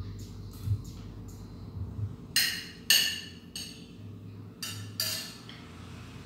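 Cutlery clinking and scraping on a plate while someone eats, with about five sharp clinks between two and a half and five seconds in.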